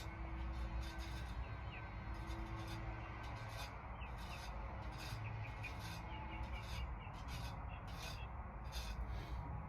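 Faint scattered clicks and light scrapes of small metal parts being handled inside a car door while a dropped piece is fished out, over a steady low hum.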